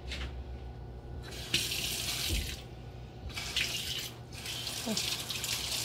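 Kitchen faucet running into a stainless steel sink, the flow of water starting and stopping several times as the single handle is worked. The newly replaced Glacier Bay cartridge is being tested.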